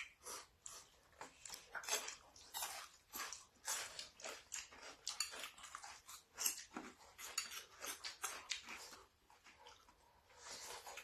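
Someone chewing food close to the microphone: irregular wet chewing and smacking sounds, several a second, easing off near the end.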